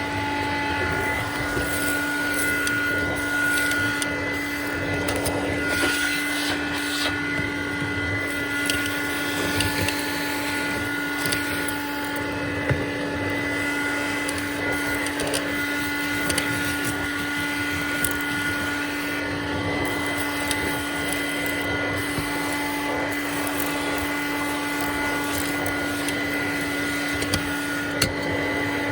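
Hoover Dial-A-Matic 1136 clean-air upright vacuum running steadily on high suction: a constant motor hum with a higher whine above it and air rushing. A few brief clicks come through along the way.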